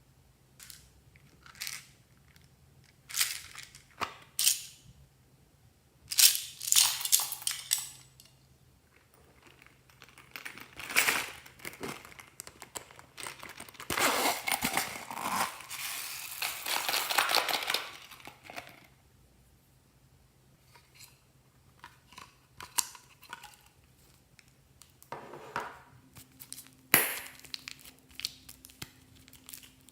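Slime being squeezed and pressed by hand, giving irregular crackles and pops. The crackling is densest in a long run in the middle.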